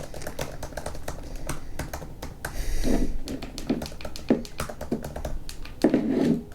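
Typing on a computer keyboard: a quick run of key clicks, with two louder, deeper key strikes, about three seconds in and near the end.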